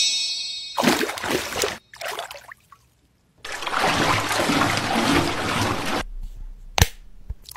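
Running and splashing water sound effects for washing a face, in two bursts: a short one about a second in and a longer stretch from about three and a half to six seconds. A sharp click comes near the end.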